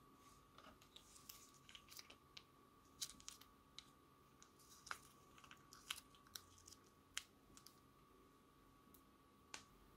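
Thick slime squeezed out of a plastic piping bag into a bowl of slime: faint, scattered sticky clicks and crackles, with a few sharper snaps about three, six and seven seconds in and one more near the end, over a faint steady high hum.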